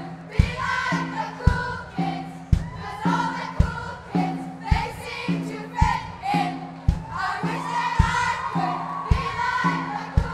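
Group of voices singing over a backing track with a steady bass drum beat about once a second.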